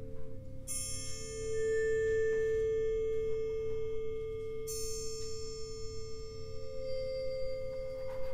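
Metal percussion in a percussion ensemble: two close pitches held as a steady, sustained ringing tone. Two bright struck-metal notes about four seconds apart, one about a second in and one near the middle, ring on with many high overtones.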